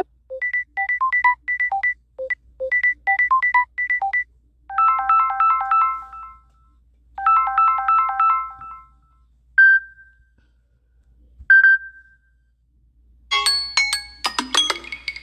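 Samsung Galaxy A71 5G ringtones and notification tones played one after another. First a quick melody of short beeps, then a chiming arpeggio pattern heard twice, then two single pings with pauses between them. Near the end a brighter, percussive chiming tone begins.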